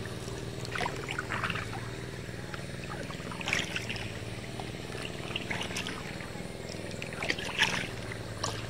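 Kayak paddle strokes in lake water: a few splashes and drips, several seconds apart, over a steady low hum.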